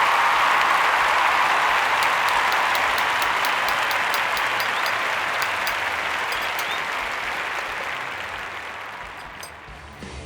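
Crowd applause, loud at first and fading out slowly until it has almost died away near the end.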